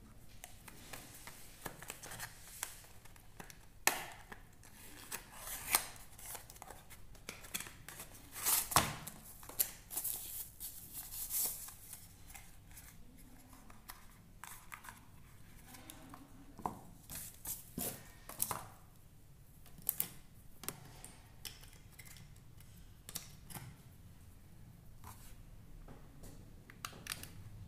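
Close-up handling of packaging: a small cardboard box opened and a foam-plastic wrapping crinkled and pulled off a small UV nail lamp, with scattered sharp clicks and taps. The loudest cluster comes about nine seconds in.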